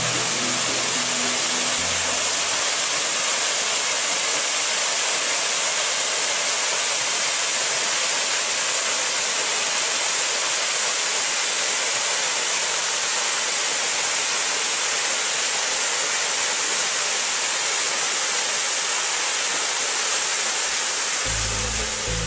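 Waterfall: a steady, unbroken rush of falling water, a dense hiss with most of its weight in the high range.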